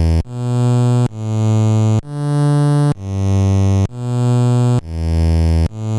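Amiga OctaMED synth instrument playing a sequence of low notes of changing pitch, about one a second. Each note swells up from silence over a fraction of a second and then cuts off: a volume list that starts at volume 0 and ramps up with a change-up command at speed 3.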